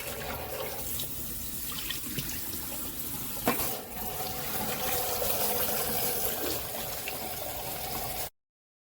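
Kitchen tap running into a sink while a stick vacuum's dirt container is rinsed out, with one sharp knock about three and a half seconds in. The sound cuts off suddenly near the end.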